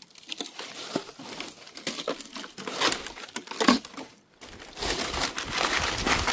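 Dry sticks and beach debris being handled, snapped and crunched: a run of irregular crackles and rustles. A little past halfway it breaks off briefly, and a steadier rushing noise follows.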